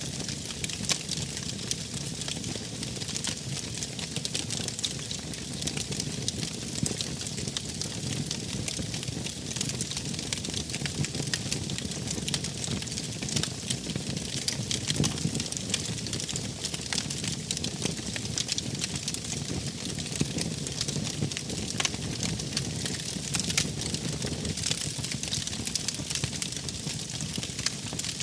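Wood fire crackling, with a steady low rush of flames and frequent small sharp pops.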